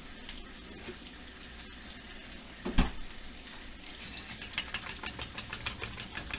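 Bacon sizzling in a frying pan, a steady hiss. There is a dull thump near three seconds, and from about four seconds a fast, even run of light clicks, about five a second.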